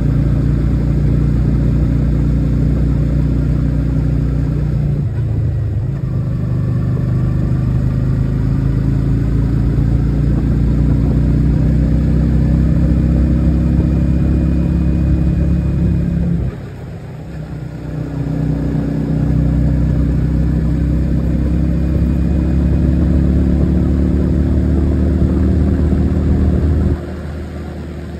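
Motorcycle engine running under way at road speed, a steady engine note with road noise. The note dips about five seconds in and climbs again, drops away for a couple of seconds midway before pulling back up, and falls off again near the end as the engine is throttled down.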